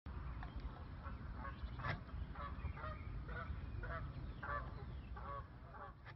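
Geese honking repeatedly, about ten short calls at roughly half-second intervals, over a low steady rumble.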